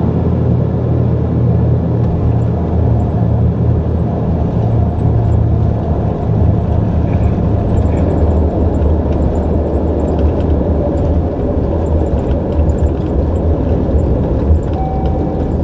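Cabin noise of an Embraer EMB 120 Brasilia twin turboprop around landing: a loud, steady drone of propellers and engines over a rumble. About six seconds in, the low drone drops in pitch.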